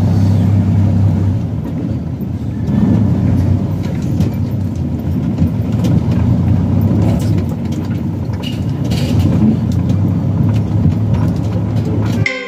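Prime mover truck's diesel engine running steadily at low speed, heard from inside the cab as a deep rumble with occasional knocks and rattles. Music cuts in right at the end.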